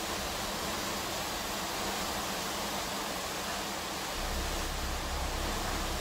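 Typhoon wind and heavy rain, a steady rushing noise; a low rumble joins about four seconds in.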